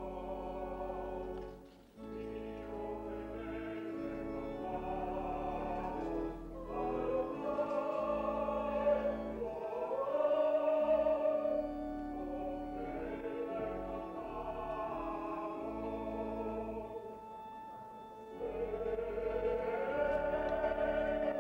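Choir singing slow liturgical music with long held notes. It dips briefly about two seconds in and softens for a moment a few seconds before the end.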